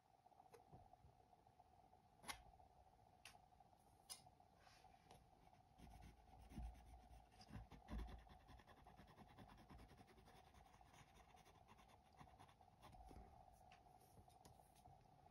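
Faint scratching of a palette knife working paint on a stretched canvas, with a few light clicks and some dull thumps near the middle, over a faint steady hum.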